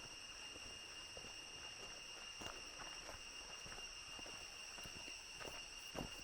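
Steady high-pitched insect chorus droning in several even tones, with the hiker's footsteps on the trail tapping and crunching irregularly, the loudest step near the end.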